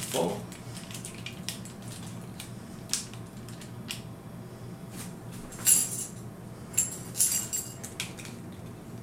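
Scattered small clicks and clacks of a 1/6-scale diecast Hot Toys War Machine Mk IV figure's armour and joints as it is handled and set standing, with a cluster of louder clacks past the middle. A low steady hum runs underneath.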